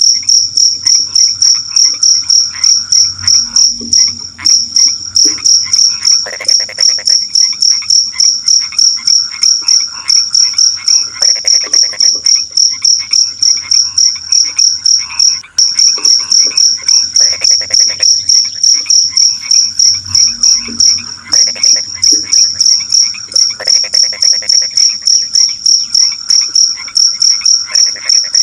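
A cricket chirping in a loud, fast, even pulse, with frogs croaking in short calls that come every few seconds.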